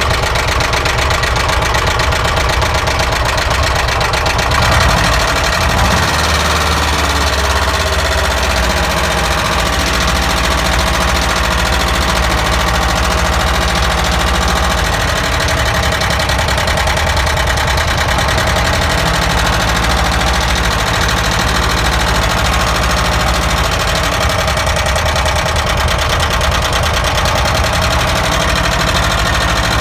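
ZAZ car engine idling with a rapid, even knock that keeps time with the engine's speed.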